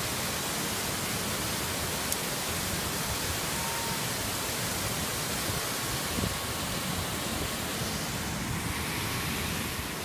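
Man-made waterfall cascading over artificial rockwork into a pool: a steady, even rush of falling water.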